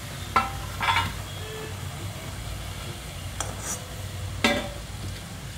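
Steel slotted spoon clinking and scraping against a metal kadhai as fried rolls are lifted out of hot oil, over a faint sizzle of the rolls still frying. There are a few sharp knocks, the loudest about four and a half seconds in.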